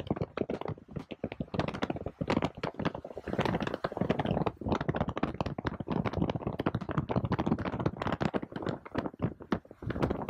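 Rapid, irregular clicking and crackling, several sharp clicks a second, dense and uneven throughout.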